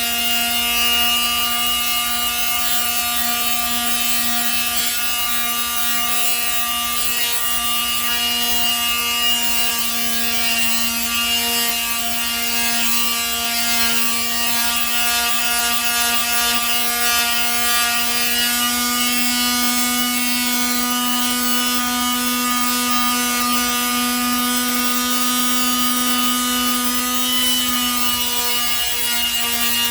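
Makita variable-speed angle grinder fitted with a sanding disc, running at a steady whine while it sands a wooden axe handle.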